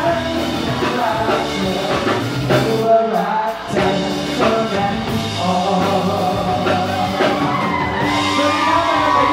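Three men singing a pop song together live into handheld microphones over backing music.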